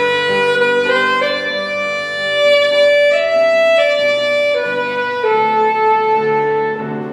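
Instrumental music: a solo melody of long held notes, violin- or saxophone-like, over a lower accompaniment.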